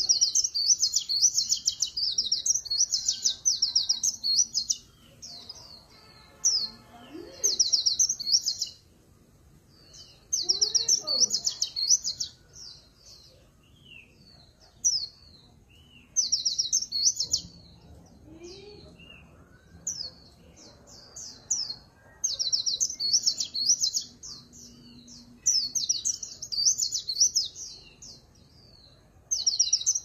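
Caged white-eye singing: bursts of fast, high twittering a second or two long, broken by short pauses. It sings in the 'líu pha chòe' style, which mixes magpie-robin-like phrases into the white-eye's song.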